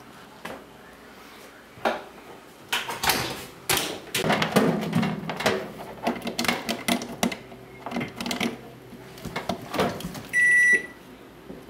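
Irregular knocks and clatter of objects being handled, then a single electronic beep lasting about half a second near the end, the kind a microwave oven's keypad or timer gives.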